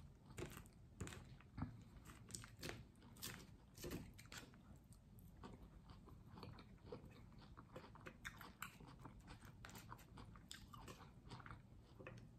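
A person biting and chewing crunchy food, faint irregular crunches and wet clicks of the mouth.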